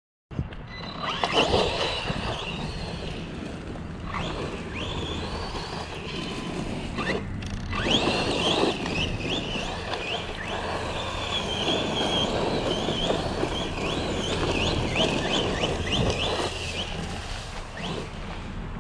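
Electric motor of a Losi Lasernut RC car whining up and down in pitch as it is throttled, with many quick rising whines in the middle, over a steady rough running noise.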